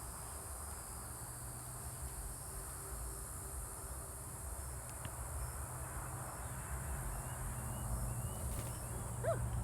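Steady high-pitched buzzing of an insect chorus, over a continuous low rumble.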